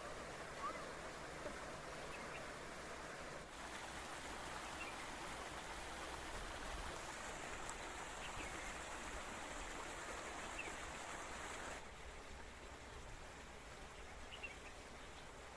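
Running water of a spring-fed stream, a steady rushing with a few faint short bird chirps over it. It drops a little quieter near the end.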